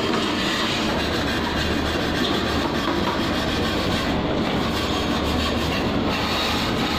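Steady, loud din of heavy machinery nearby: a continuous rumble and hiss with no pauses.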